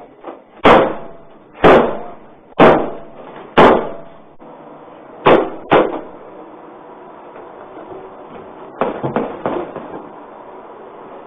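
Police transport van's doors being shut and latched: four loud bangs about a second apart, then two more in quick succession, and softer knocks and rattles near the end.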